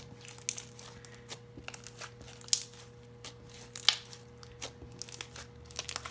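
Sticky purple glitter slime being kneaded and pressed against a tabletop by hand, giving off irregular wet clicks, pops and crackles as it sticks and pulls away, with two louder pops about two and a half and four seconds in.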